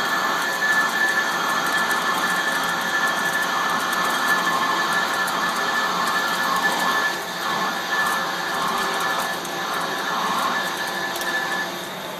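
Metal lathe turning a large steel disc, the tool cutting steadily: a continuous mechanical whirr with a steady high whine running through it.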